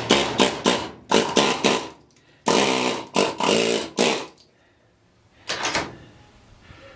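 Pneumatic air chisel hammering in short bursts, one trigger pull after another, as it cuts the copper windings out of an electric motor stator. There are about four bursts, the last a brief one about five and a half seconds in.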